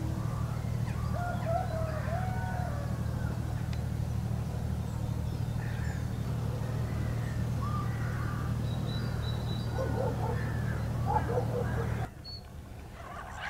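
Scattered bird calls and chirps at dawn over a steady low rumble. About twelve seconds in, the rumble cuts off abruptly, and near the end gulls start calling loudly.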